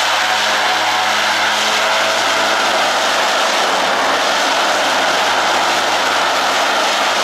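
The twin Garrett TPE331 turboprop engines of a Dornier Do 228 are running at low power as it taxis and turns to line up for takeoff. The sound is a loud, steady turbine roar with a propeller hum.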